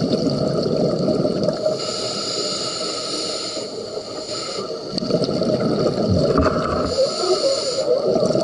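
A scuba diver breathes through a regulator underwater. A hissing inhale alternates with a long, crackling rush of exhaled bubbles, twice over.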